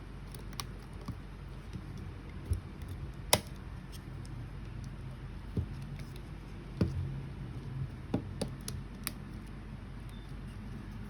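Small clicks and taps from handling tools and small parts at a workbench, scattered irregularly, the sharpest about three seconds in, over a low steady hum.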